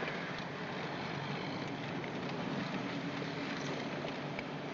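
Car engine running steadily with road and tyre noise, heard from inside the cabin as the car drives slowly along.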